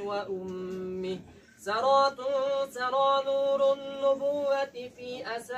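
A man's voice chanting melodically, unaccompanied, in long held notes. There is a short pause about a second and a half in, then the voice slides up into another long note.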